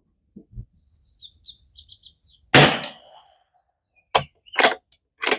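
A single shot from a Tikka T1X bolt-action .22 LR rifle about two and a half seconds in, followed by four short sharp clicks as the bolt is worked. Birds chirp briefly before the shot.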